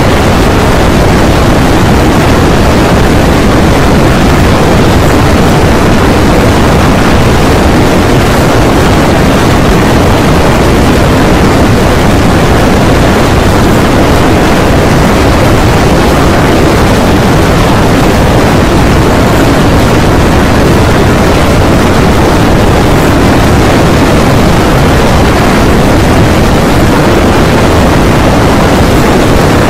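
Animal stampede rumble, very loud and heavily distorted: a dense, steady roar with no rhythm or breaks.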